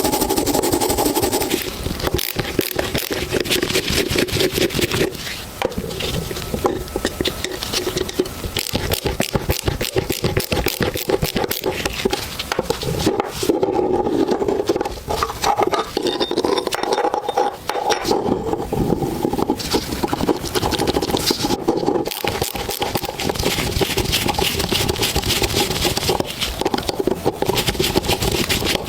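Scraping on the rusted metal of a pistol's parts in fast, repeated strokes, with brief pauses now and then.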